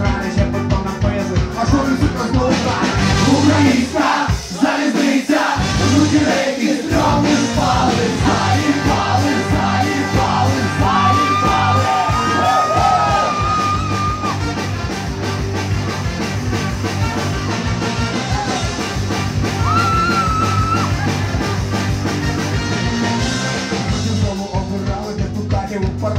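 Live ska-punk band playing: drums and bass keep a steady beat under electric guitar, keyboard and trombone while a man sings and shouts the lyrics into the microphone. The bass and drums drop out briefly about four seconds in, then come back.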